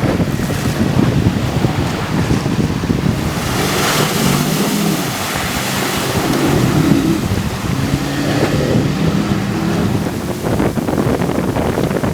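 Heavy wind buffeting the microphone and water rushing past the hull of a boat under way, with a Yamaha 50 four-stroke outboard running underneath.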